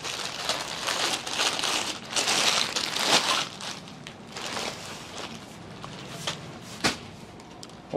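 Crinkling and rustling of clothes being handled and spread out, loudest in the first few seconds, then quieter, with two sharp clicks near the end.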